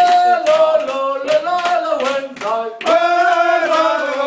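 Men's choir singing together with long held notes that glide from note to note, over a steady beat of hand claps, about three claps a second.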